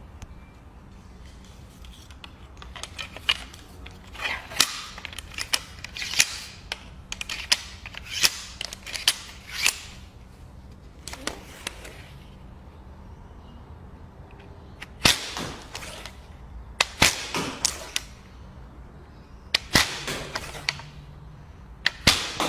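A recurve bow shot again and again in quick succession: sharp snaps of the string releasing arrows, about two a second. Two runs of shots with a lull in the middle.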